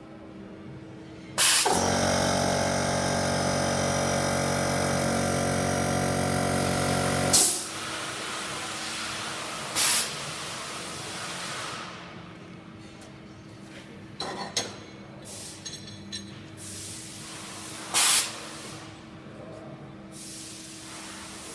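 A welding system running through a cycle: a sharp pneumatic hiss, then a loud steady buzz lasting about six seconds that ends in another hiss. Later come two short blasts of air and a few clicks, over a constant low machine hum.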